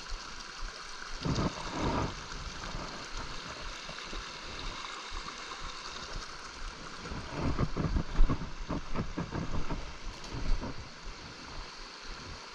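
Small brook running over rocks, a steady rush of water. Irregular low thumps come through it, strongest around two seconds in and again from about seven to eleven seconds.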